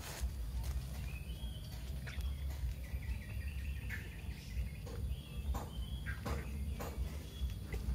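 Short high chirps and peeps, some rising or falling, come every second or two over a steady low rumble, with a few sharp clicks and taps.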